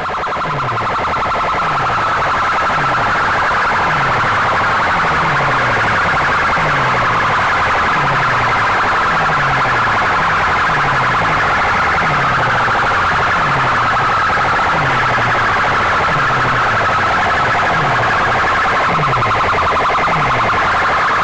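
A huge stack of horn loudspeakers blaring a harsh, siren-like electronic sound at very high volume, with a low falling sweep repeating about once a second. The sound is loud enough that bystanders plug their ears.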